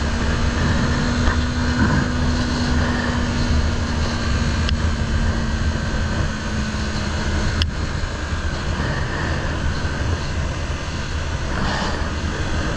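Motorcycle engine running under way, with heavy wind rumble on the microphone. A steady engine tone drops away about seven seconds in, and there is one sharp click just before eight seconds.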